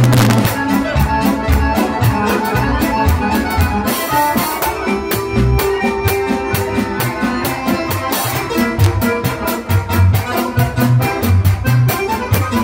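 Live band playing: accordion over a drum kit, with a fast, steady cymbal beat throughout.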